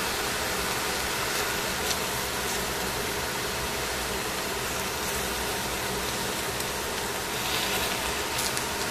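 Cabbage, carrots and mushrooms sizzling steadily in a hot stainless steel pan as they are stir-fried with tongs, with a couple of light clicks of the tongs against the pan.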